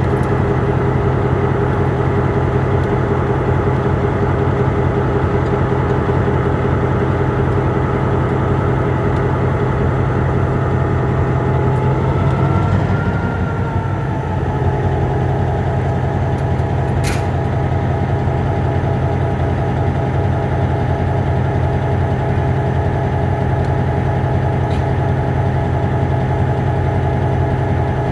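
EMD MP15 switcher locomotive's two-stroke diesel engine idling steadily. About halfway through the sound briefly shifts and dips, and a single sharp click follows a few seconds later.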